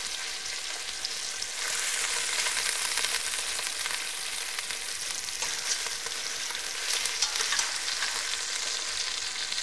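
Hot oil and meat juices sizzling and crackling steadily in a stainless steel pot after browning turkey pieces, with the gas burner just turned off.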